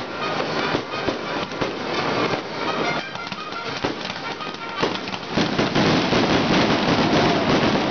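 Aerial fireworks bursting in quick succession, a dense run of bangs and crackles, with music playing underneath. About five seconds in the sound thickens into a louder, continuous wash.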